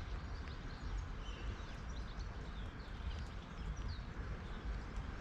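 Small birds chirping in a tree, many short high calls scattered throughout, over a steady low rumble.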